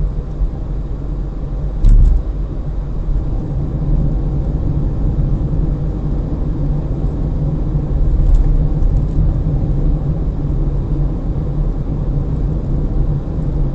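Cabin noise inside a Perodua Axia cruising at about 60 km/h in fifth gear: a steady low rumble, mostly tyre road noise with the air conditioning and some wind noise, the three-cylinder engine barely audible. Two brief thumps, about two seconds in and near eight seconds.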